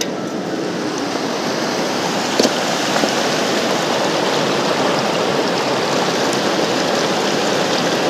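Rushing water of a mountain river: a steady, even rush that swells slightly over the first few seconds, with one faint click about two and a half seconds in.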